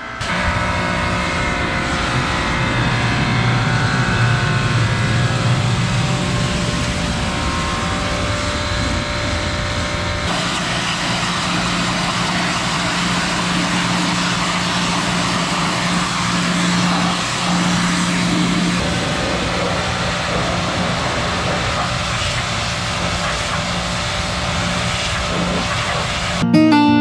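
Hot-water pressure washer running with a steady hum while its spray hisses against a tractor's metal. The sound shifts about ten seconds in.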